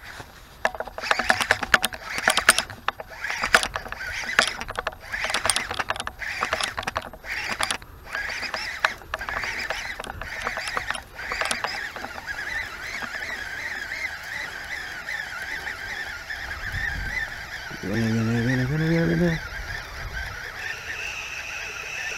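Geese honking in a run of short calls for about the first eleven seconds. After that comes a steady whir from a baitcasting reel as a lure is wound in across the water, with a brief low hum about three-quarters of the way through.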